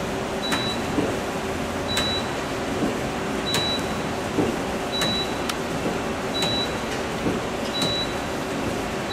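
Okuma Impact LU25 CNC lathe running with a steady mechanical hum. A sharp click with a brief high ring repeats evenly about every one and a half seconds, six times.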